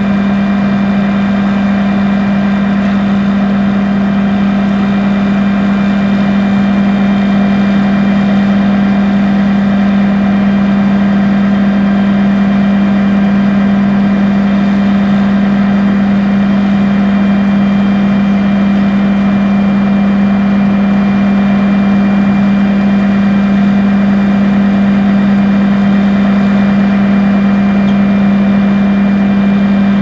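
Krone Big X self-propelled forage harvester's engine running steadily, a strong constant hum with a few steady higher whines over it and no change in speed.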